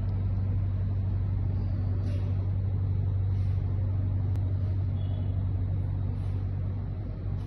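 A steady low hum, even in level throughout, made up of one deep tone with evenly spaced overtones, like a running motor or mains-powered machine.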